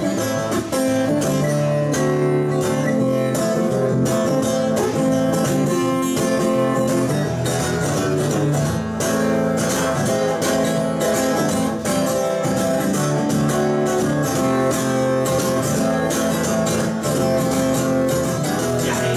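Steel-string acoustic guitar strummed steadily through an instrumental passage between sung verses, with no voice.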